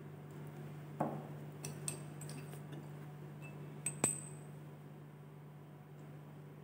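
Glassware handled on a bench: a glass reagent bottle knocks down onto the bench about a second in, then a few light clicks. About four seconds in comes a sharp glass clink with a short ring as the glass dropper is drawn out against the bottle's neck. A steady low hum runs underneath.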